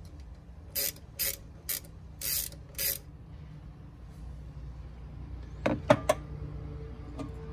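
Ratchet wrench worked in five short clicking strokes. A few seconds later come three sharp metallic clicks, the loudest sounds here.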